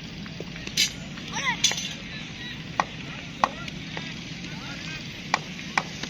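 A handful of short, sharp knocks at irregular intervals, about six in all, over a steady low background hum.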